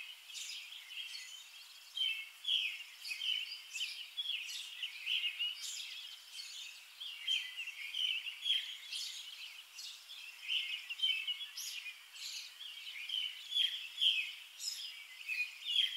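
Small birds chirping and twittering, many short calls a second, over a faint steady hiss.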